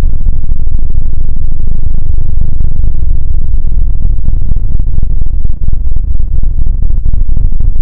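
Slowed-down, overdriven sound effect played at extreme loudness: a dense, crackling low rumble that runs on without a break.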